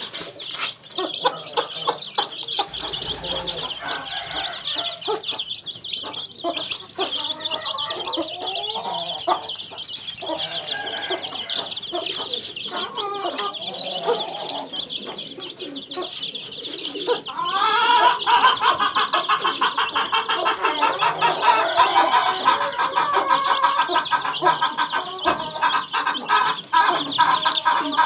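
A brood of two-week-old heera aseel chicks peeping continuously while a mother hen clucks among them; the calling grows louder about two-thirds of the way in.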